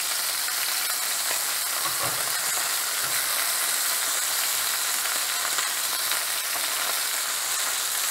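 Chicken pieces searing in hot oil in a stainless steel sauté pan over medium-high heat, giving a steady frying sizzle. A couple of soft knocks come about two and three seconds in as pieces are flipped with tongs.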